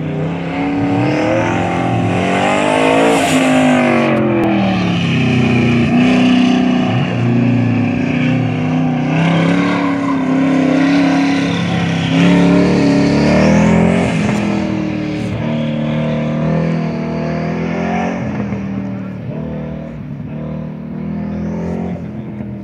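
Car engine on an autocross course, revving up and dropping back again and again as the car accelerates and slows between the cones. It fades near the end as the car moves away across the lot.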